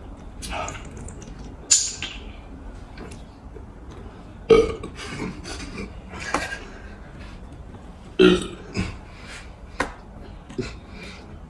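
A person burping several times after drinking cola, with the loudest burps about four and a half and eight seconds in.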